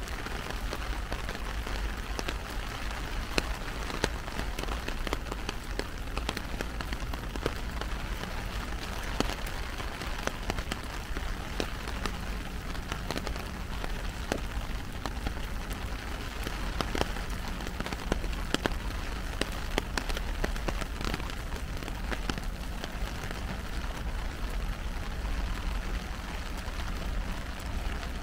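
Heavy rain falling on an umbrella overhead: a steady hiss with many sharp drop hits scattered throughout, over a steady low rumble.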